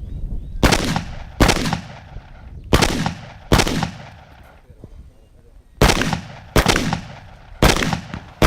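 Shotgun firing slugs in quick pairs, eight shots in all: two shots about a second apart, then a pause before the next pair, each report followed by a ringing echo. Two slugs per target, as on a 10-target stage with a 20-round minimum.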